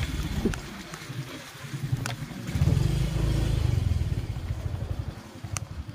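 Motorcycle engine running under way, a low rumble that swells about two and a half seconds in and eases off near the end, with a few sharp clicks.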